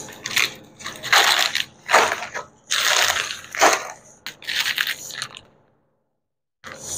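Plastic snack packets crinkling as they are handled and pulled out of a cardboard box, in a string of short rustling bursts, with a moment of dead silence near the end.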